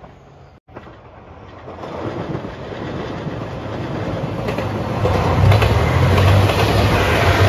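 JR Shikoku 2700 series diesel limited-express train approaching and passing close by: its diesel engines and wheels on the rails grow steadily louder, with a deep hum, and are loudest from about five seconds in.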